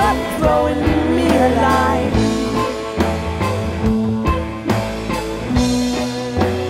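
Instrumental stretch of a rock-leaning bluegrass band: drums keeping a steady beat under bass, guitar, mandolin and violin, with sliding melody lines on top.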